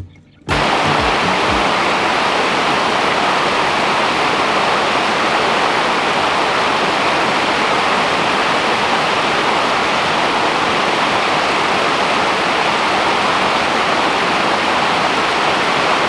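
Steady, loud rush of cascading water from a mountain creek, starting abruptly about half a second in.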